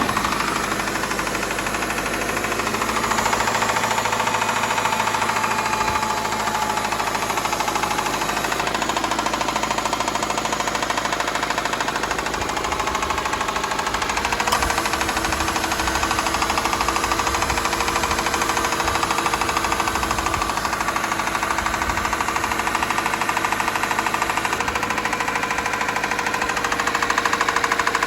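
Subaru Levorg 2.0-litre turbocharged boxer engine running after a morning start, with a rapid, steady clattering tick over the engine note. It is an abnormal noise whose cause the owner does not know.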